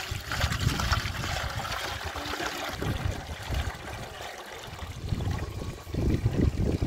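Water pouring in a steady trickle from a plastic jerrycan into a metal cooking pot. Low rumbling near the end, like wind on the microphone.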